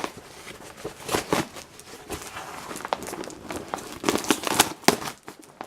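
Packing material crinkling and rustling in irregular handfuls as a tightly packed cardboard mail box is unpacked by hand.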